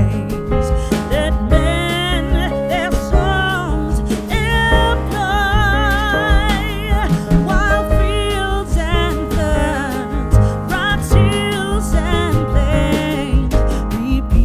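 Background song: a singer with vibrato over a band accompaniment with a steady beat.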